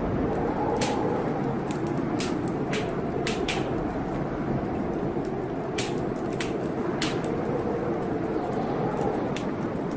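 Fireplace fire crackling, with irregular sharp pops about every half second to second, over a steady low rush that slowly wavers in pitch.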